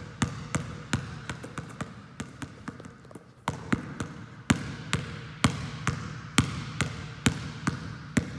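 Basketball dribbled on a gym floor in a one-handed V dribble, bouncing about three times a second, each bounce echoing in the hall. The bounces are softer for a stretch about two seconds in, then come back louder.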